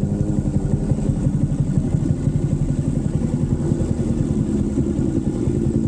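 Single-cylinder four-stroke motorcycle engine running steadily on the move, its firing pulses close and even.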